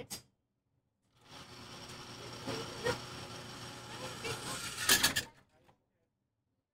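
Mechanical clicks and clatter of a firearm being handled on the bench over low, steady noise. The sharpest clicks come about three seconds in and in a quick cluster about five seconds in.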